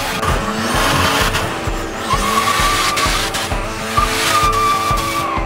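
Ford AU Falcon drift car doing a smoky burnout and donuts: the rear tyres spin and screech on the tarmac under the engine's power. A high steady squeal rings out twice, for about a second each time, about two and four seconds in.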